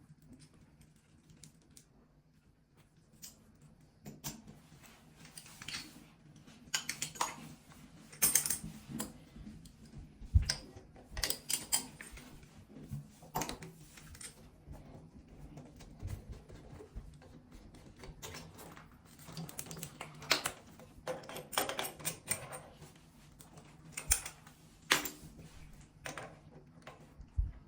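Irregular clicks, taps and light knocks of a bidet sprayer's fittings and hose being handled and taken off by hand, starting after a few quiet seconds, with a faint steady low hum beneath.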